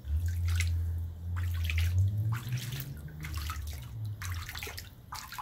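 Water splashing and sloshing in a shallow folding pet pool, stirred by a hand and a small dog's legs, in a string of separate splashes. A low rumble runs under the first two seconds or so.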